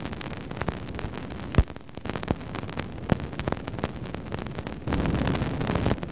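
Cassini spacecraft's Radio and Plasma Wave Science recording played as sound: a steady hiss scattered with sharp pops and crackles, each pop a dust particle from Saturn's faint ring striking the spacecraft. The hits grow denser and louder for about a second near the end.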